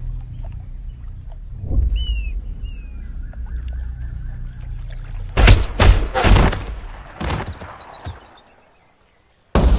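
Birds chirping over a low steady rumble, then four or five gunshots in quick succession about five to eight seconds in, each echoing and dying away.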